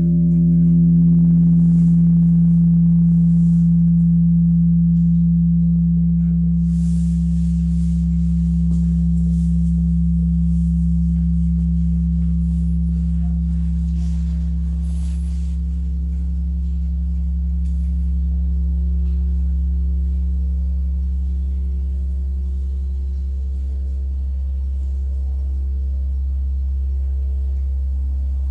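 Japanese temple bell (bonshō) ringing out after a strike: its deep hum lingers and slowly fades, swelling and ebbing gently as it dies away, while the higher overtones die out within the first few seconds.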